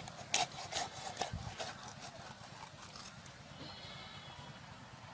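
A whole raw chicken being cut apart on a boti, an upright fixed blade: a quick run of sharp cracks and snaps from joints and skin giving way in the first two seconds, then only faint handling.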